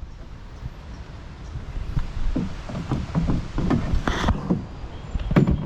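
Canoe hull being handled at the water's edge: irregular knocks, thuds and scrapes against the hull, with a couple of sharper clatters near the end, over a steady low rumble.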